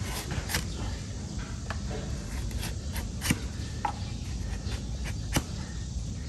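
A donkey's hoof being trimmed: irregular sharp clicks and short scrapes of the trimming tools on hoof horn, over a steady low background noise.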